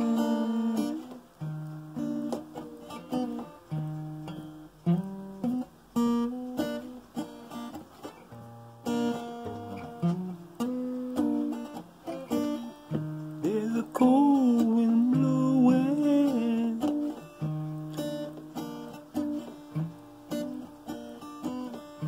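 Acoustic guitar played solo: picked notes and strummed chords, each ringing and fading, with a louder passage about two-thirds of the way through.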